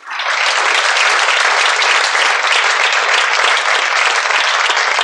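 Steady hiss of heavy rain, starting abruptly and cutting off near the end.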